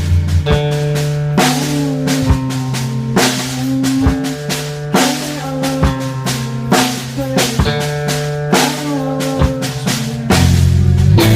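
Rock music: a drum kit keeps a slow, even beat, with a hit about every second, over held bass and chord notes. It gets louder and fuller near the end.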